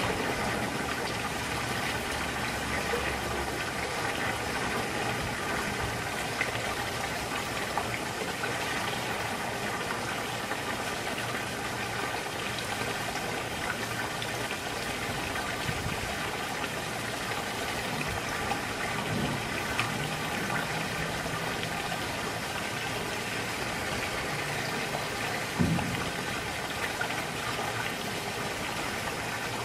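Water pouring from a sheer waterfall spout into a swimming pool: a steady splashing rush with a faint steady mechanical hum beneath it, and one brief low thump near the end.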